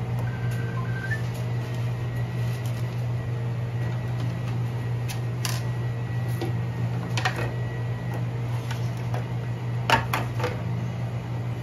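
A steady low hum with a few sharp clicks and taps from metal parts of an espresso grinder being handled during repair, the loudest about ten seconds in.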